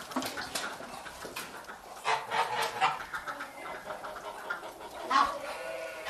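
White domestic ducks quacking in short bursts, with a cluster of calls about two seconds in and the loudest call about five seconds in.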